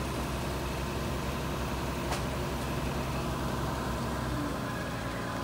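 Heavy engine running steadily at a low pitch, with one short sharp click about two seconds in.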